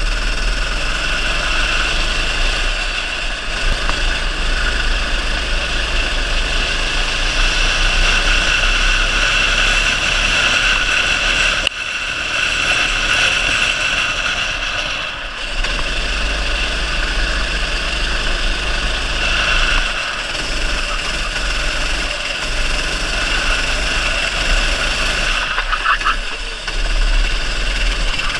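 Racing kart's small single-cylinder engine (270 cc class) running hard, heard onboard from the kart itself, with a steady low rumble of wind and vibration on the microphone. The engine note dips briefly a few times, around the twelve-, fifteen- and twenty-six-second marks, as when the driver lifts off for corners.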